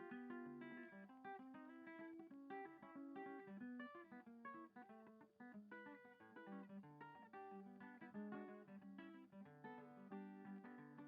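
Background music played on guitar: a quick, steady run of plucked notes.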